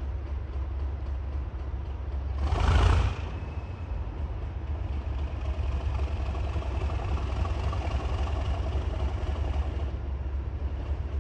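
Diesel locomotive engine running with a steady low rumble, and a loud burst of noise lasting under a second about two and a half seconds in.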